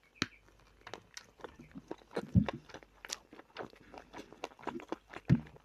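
Close-miked mouth sounds of biting into and chewing a fresh tomato: many short wet clicks and smacks, with two louder low thumps, about two and a half seconds and five seconds in.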